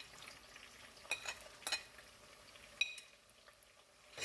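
Onion sizzling as it fries in hot vegetable oil in a pot, while a metal spoon stirs it and clinks against the pot four times.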